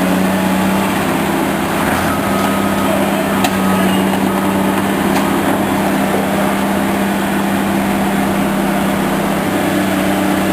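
Engine of heavy construction equipment running steadily at a constant pitch, a continuous loud hum.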